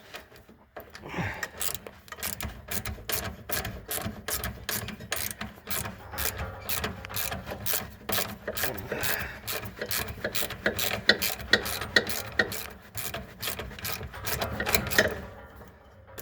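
Socket ratchet clicking in quick, steady strokes, about four or five clicks a second, as a 3/8 bolt is backed out.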